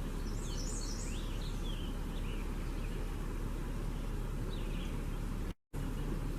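Birds chirping: a cluster of quick high chirps in the first second or so and a few more about four and a half seconds in, over a steady low rumble. The sound cuts out completely for a moment near the end.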